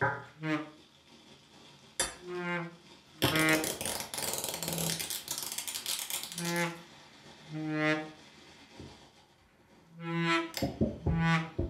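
Baritone saxophone playing short, detached low notes, repeated again and again on about the same pitch. A loud burst of hissing noise fills the middle few seconds.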